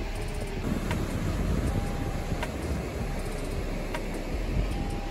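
Steady low rumble of ocean surf breaking on a sandy beach, mixed with wind on the microphone. Faint ticks recur about every second and a half.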